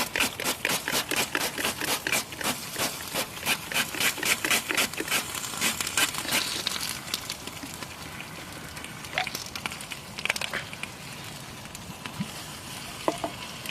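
Melted, still-hot plastic of a burnt toy microwave crackling: a dense run of sharp crackles for about the first six seconds, thinning to scattered pops after that.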